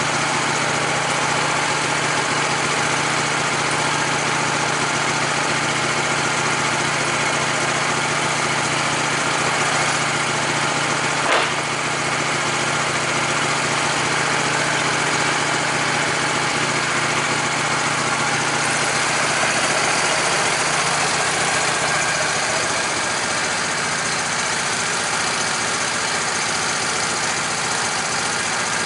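Gasoline engine of a Wood-Mizer LT15 portable bandsaw mill running steadily, with one short sharp click about eleven seconds in.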